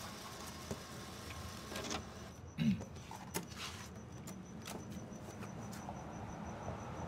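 Quiet night street ambience: a steady low traffic rumble with crickets chirping. Over it come a few short clicks and beeps of ATM keys being pressed, and one brief louder low sound about two and a half seconds in.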